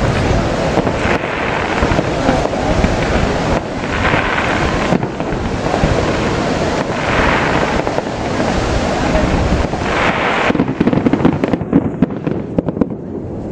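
Aerial fireworks display: a continuous barrage of shell bursts and crackling, with a run of heavier bangs near the end.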